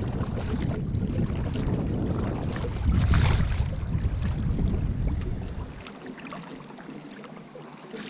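Strong wind buffeting the microphone on a kayak at sea, with water splashing and crackling against the hull; the deep wind rumble drops away about six seconds in.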